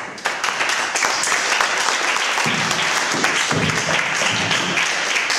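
Audience applauding, breaking out suddenly in dense, loud clapping.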